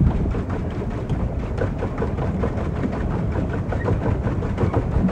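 Small boat under way on choppy water: water churning and splashing at the hull with rapid, irregular knocking, and wind buffeting the microphone.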